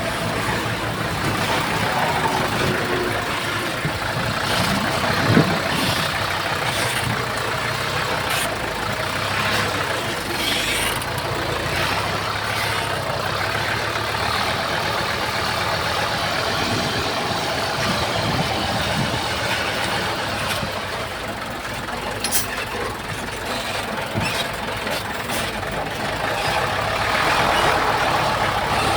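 Heavy earthmoving machinery's diesel engine running steadily, with a few short clanks here and there.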